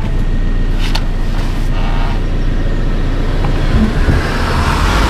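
Converted camper van driving along a rough road: steady engine and tyre rumble.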